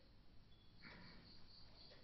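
Near silence: quiet room tone, with one faint soft rustle about a second in.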